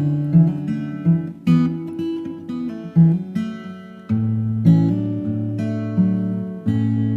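Instrumental acoustic guitar music: chords plucked and left to ring, changing every second or so.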